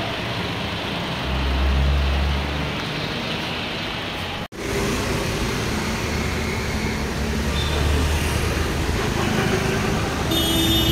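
Maruti Suzuki S-Cross DDiS diesel engine running at idle, a steady low hum, while hydroxy gas is fed into its air intake for decarbonization. The hum grows louder between about one and three seconds in, and the sound breaks off for an instant about four and a half seconds in.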